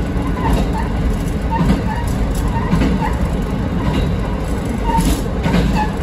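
Diesel railcar running along jointed rail on straight track, its wheels clacking over the rail joints in a steady rhythm over a continuous low running rumble.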